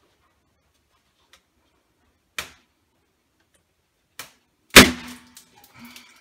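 A latex balloon bursting with a sharp, loud pop, the loudest sound, about three-quarters of the way through, as it is pushed against the packing tape that holds it. It is followed by balloons squeaking and rubbing. A single sharp click comes earlier, about two and a half seconds in.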